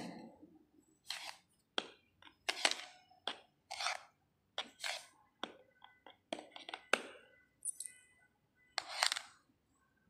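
About a dozen short, irregular clicks, clinks and scrapes: potassium permanganate crystals being taken from their plastic reagent jar into a small porcelain dish.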